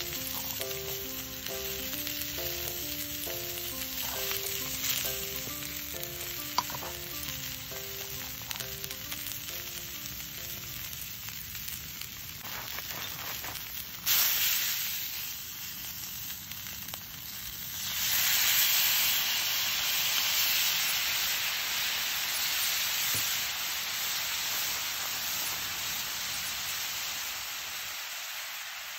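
Tofu frying in oil in a small cast-iron skillet: a steady sizzle, with background music over it for the first ten seconds or so. About fourteen seconds in there is a sudden loud hiss as liquid hits the hot pan, and from about eighteen seconds a louder sizzle of the sauce boiling in the skillet, which slowly dies down.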